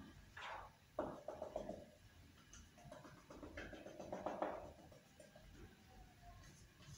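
Whiteboard marker scratching and squeaking across the board in a few short strokes as lines are drawn.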